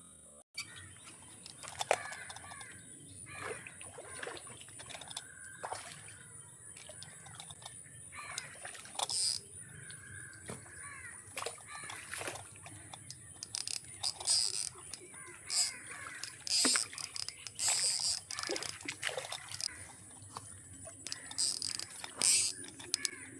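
Outdoor ambience: birds calling off and on, with short chirping calls, over a steady high-pitched drone and occasional brief sharp sounds.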